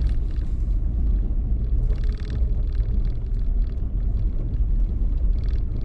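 2018 Nissan Frontier Pro-4X's V6 and tyres making a steady low rumble as the truck crawls over a rough dirt trail, with three short higher-pitched rattles or squeaks.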